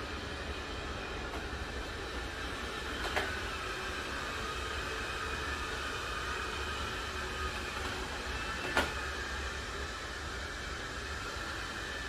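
Ainic i9 robot vacuum running, a steady motor whine over a whirring noise, with two short sharp knocks about three seconds in and near the end.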